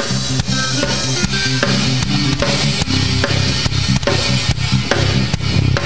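Upbeat band music with a steady drum-kit beat, about two to three hits a second, over a moving bass line.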